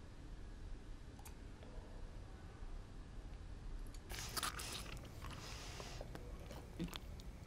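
Faint room tone, then from about four seconds in a woman eating messily by the handful: wet chewing and smacking of chocolate-smeared sweets, with many small clicks and crunches.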